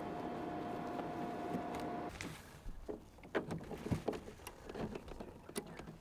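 Steady hum of an EcoFlow Wave portable air conditioner running on its low setting, with one clear tone over a low drone. It cuts off abruptly about two seconds in. A scatter of light clicks and knocks follows as folding solar panels are handled and set out.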